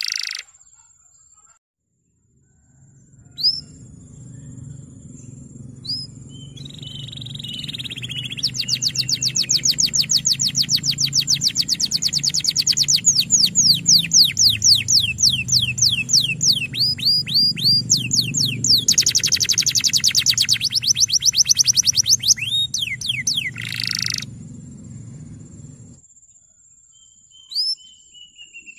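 Male domestic canary singing a long song: a few separate chirps, then long, rapid trills of quick downward-sweeping notes, over a low steady hum.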